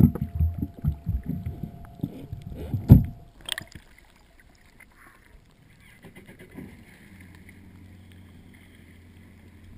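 Underwater sound from a camera just below the surface at the side of a jet ski: low rumbling and gurgling water thumps against the housing, loudest about three seconds in. About half a second later the camera breaks the surface with a short click, and the rest is faint water movement and a low steady hum.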